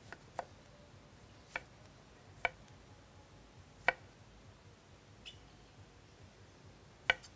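Kitchen knife slicing a tomato on a wooden cutting board: sharp, separate knocks of the blade meeting the board, about one a second at an uneven pace.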